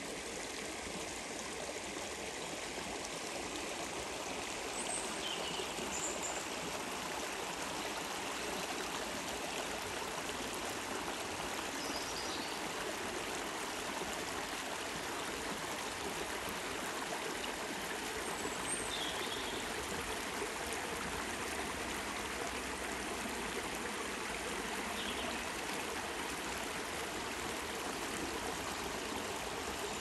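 Shallow woodland stream burbling steadily as it runs over a low rocky step. A few short, faint songbird chirps sound now and then.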